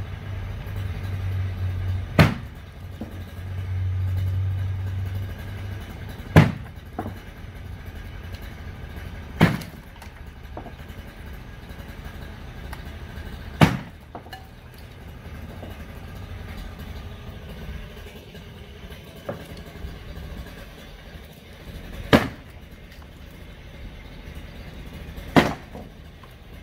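Garage demolition: a heavy machine's low engine drone swells twice in the first six seconds, and six sharp, loud cracks or crashes sound a few seconds apart as the structure is broken apart.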